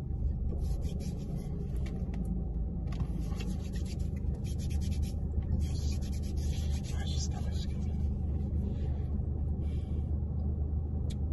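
A hand rubbing the dry, ashy skin of an elbow and forearm: a soft scratchy rubbing that comes and goes in stretches of about two seconds, over a steady low hum inside a car.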